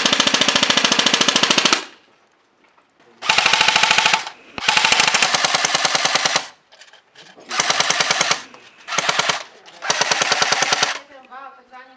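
Airsoft gun firing on full auto in six rapid bursts, the first and longest lasting nearly two seconds, each a fast, even rattle of shots.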